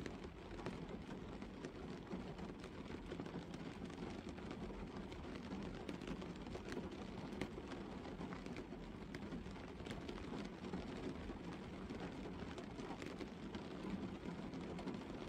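Gentle rain falling steadily on a car's roof, bonnet and windscreen, heard from inside the car, with many scattered sharp ticks of single drops.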